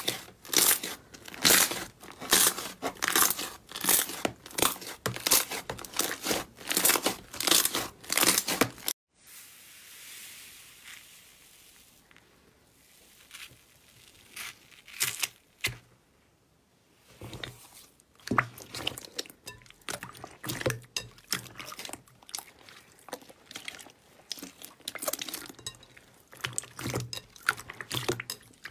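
Slime being pressed and squeezed by hand, its air pockets crackling and popping in quick sharp clicks. About a third of the way in the crackling gives way to a much quieter soft squish with only a few pops, then the crackling picks up again near the middle and runs on.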